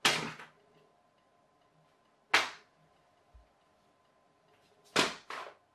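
Paper glider being thrown and flying: three short, sharp noises that fade within about half a second, spaced about two and a half seconds apart, the last one doubled.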